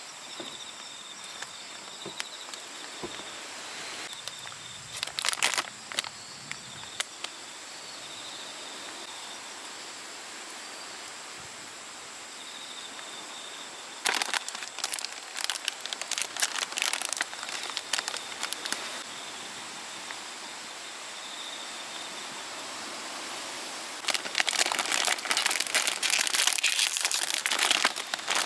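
Plastic wrapper of a Country Ma'am cookie crinkling as it is handled and opened. The crinkling comes in three bursts: a short one, then longer stretches midway and near the end.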